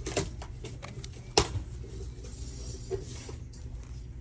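A woven basket being handled: light rustling and one sharp knock about a second and a half in, over a steady low hum.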